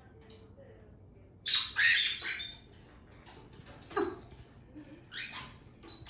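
Cockatiels squawking harshly: a loud burst of screeching calls about a second and a half in, a single short call around four seconds, and more squawks near the end.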